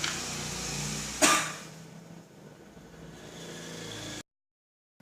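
A single short, sharp cough about a second in, over a steady low hum; the sound cuts off abruptly near the end.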